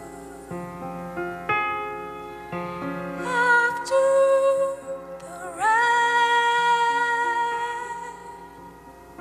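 Soft piano chords with a woman singing over them: she comes in about three seconds in with held notes, then slides up and holds a long high note until about eight seconds in, leaving the piano alone near the end.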